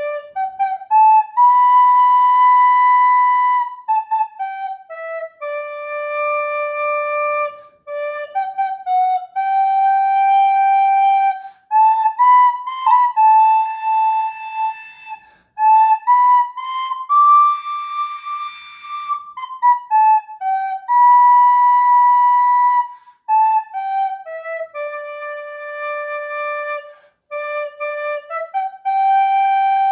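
A solo woodwind instrument playing a slow, single-line melody of long held notes joined by short stepwise runs.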